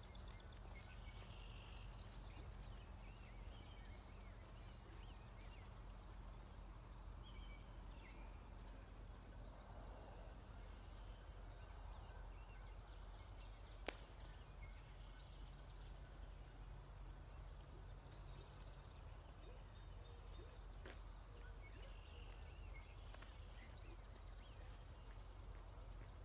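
Near silence: faint outdoor ambience with scattered distant bird calls over a low steady rumble, and a single sharp click about 14 seconds in.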